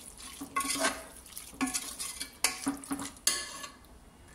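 Perforated steel ladle scraping and clanking against an aluminium pressure cooker as chunks of marinated chicken are stirred and sautéed. There is a stroke roughly every second with a short metallic ring, and it tails off near the end.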